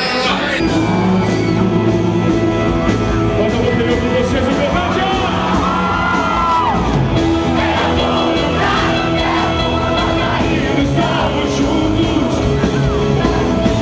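A live rock band playing, with a lead vocal sung over guitars and drums.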